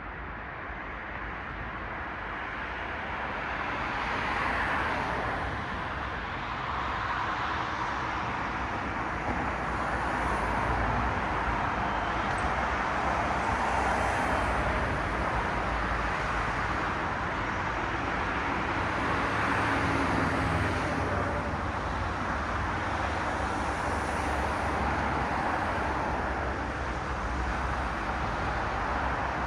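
Cars passing by on a street, their tyre and engine noise swelling and fading several times over a steady traffic hum.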